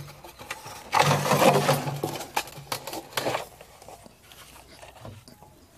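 Water being poured into a glass jar for about two and a half seconds, with a few knocks and clinks of handling around it.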